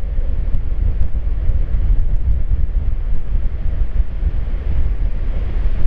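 Strong gusty wind buffeting the microphone: a loud, unsteady low rumble.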